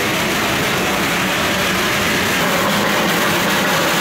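Steady running noise of the Darjeeling Himalayan Railway's steam-hauled train, heard from inside the passenger coach as an even, continuous rumble and hiss.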